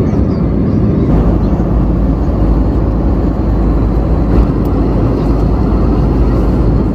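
Steady cabin noise of an airliner in flight: an even, low rush of engine and airflow noise without breaks.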